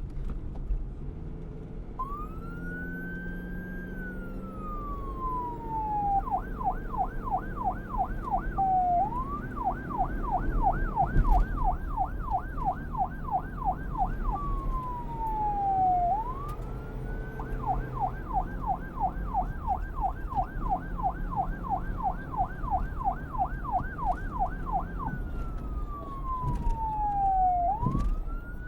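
Police car siren switching back and forth between a slow wail, rising then falling, and a fast yelp of about four sweeps a second, over a low vehicle rumble. The siren starts about two seconds in.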